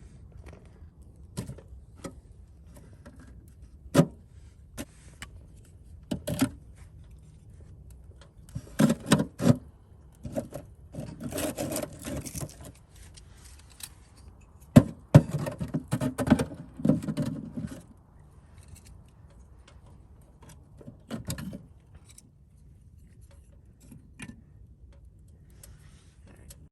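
Scattered metallic knocks, clinks and scrapes of a camp wood stove and its chimney parts being handled and fitted together. Sharp single knocks stand out about four seconds in and again about fifteen seconds in, with busier stretches of clattering between.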